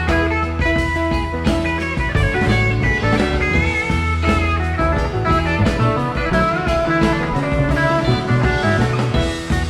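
Live psychedelic rock band playing an instrumental passage: interweaving electric guitar lines over bass and drum kit.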